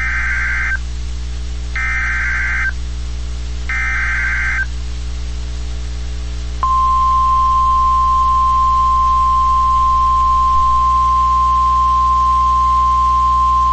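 Emergency Alert System SAME header: three short bursts of warbling digital data tones, about two seconds apart. About six and a half seconds in, the steady single 1050 Hz weather-radio warning alarm tone comes on, louder, over a faint low hum.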